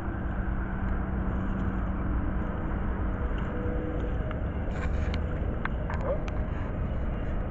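Steady low rumble of road traffic, with a faint steady hum through the first few seconds and a few light clicks and taps in the latter half.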